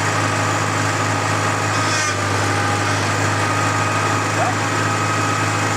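Tractor engine running steadily, driving the hydraulics of a homemade backhoe as it is worked through its motions, with a thin steady whine over the engine hum.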